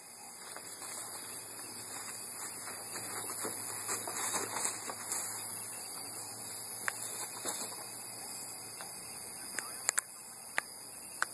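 Steady background hiss with a constant high-pitched whine, broken by a few sharp clicks near the end.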